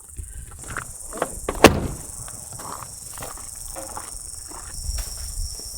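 Steady chirring of insects, with scattered footsteps and rustle. A single sharp knock about a second and a half in is the loudest sound.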